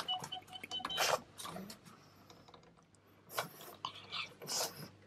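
Pug puppy moving about and nosing at a hand through the bars of its pen: faint scattered clicks and rustles, with a faint high whine in the first second.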